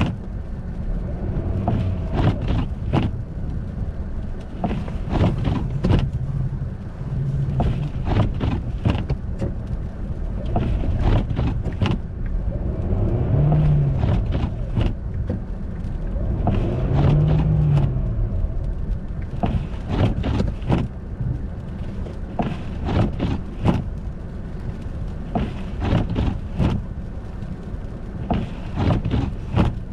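Car driving on an icy, snowy road: a steady low rumble with many short, sharp knocks and crunches. About halfway through, the engine pitch rises and falls twice.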